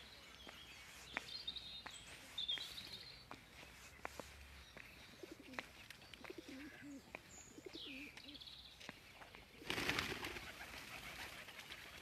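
Faint birdsong by a park pond: small birds chirping, with low, wavering cooing calls in the middle. A short rush of noise comes about ten seconds in.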